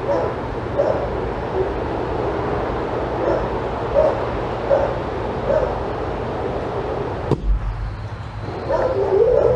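A dog barking in short, high yips about once a second, with a denser, louder run of yips near the end, over steady background noise.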